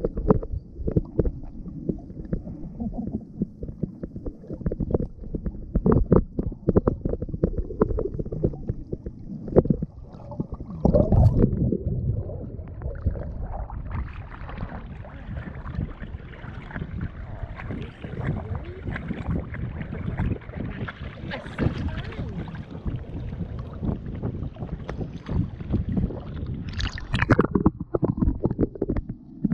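Muffled underwater sound at a camera held below the surface: low rumbling and knocks of water moving against it. About 13 s in the camera comes up above the water and the sound opens into splashing water and wind, then it plunges back underwater near the end.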